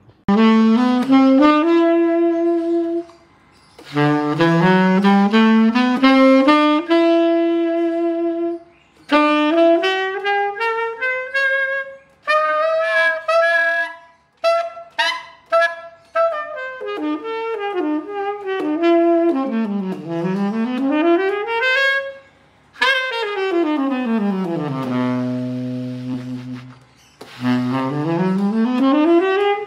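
Tenor saxophone played solo in phrases of fast rising and falling runs, with short breaths between them. Near the end it sweeps down to a held low note near the bottom of the horn, then climbs again.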